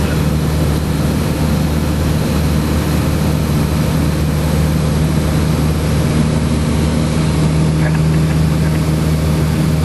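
Light aircraft's piston engine and propeller droning steadily in cruise, heard inside the cockpit.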